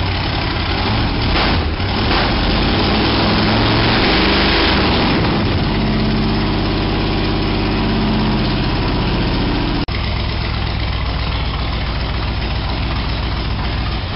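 Chevrolet 350 Vortec V8 running after its rebuild, without its exhaust finished. It rises briefly in revs a few seconds in, then settles to a steady idle.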